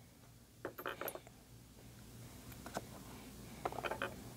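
A few faint, short clicks and knocks, scattered over a low steady hiss.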